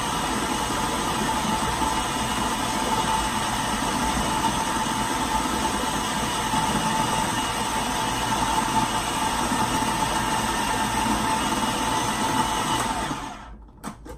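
Food processor motor running steadily as it purees carrots, celery, red pepper and fire-roasted diced tomatoes, then switched off near the end, followed by a couple of clicks.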